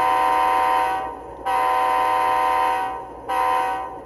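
Model locomotive sound decoder sounding a Nathan K3LA air horn, a chord of steady tones through the model's small speaker. A blast that ends about a second in, a second one of about a second and a half, and a short third one just after three seconds.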